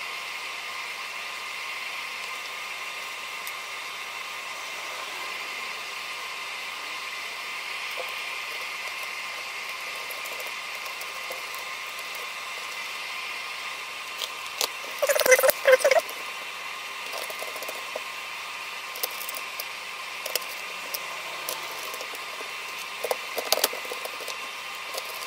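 Plastic clicks and clatter from the Dell Inspiron Mini 10 netbook's case parts being handled and pressed back into place, over a steady background hiss. A cluster of louder rattles comes about fifteen seconds in, followed by scattered single clicks.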